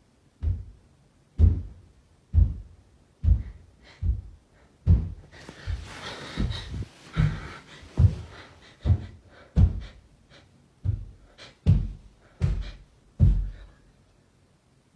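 Heavy, dull thumps in the house, about one a second and about sixteen in all, each dying away quickly in the room. Bedding rustles against the phone midway.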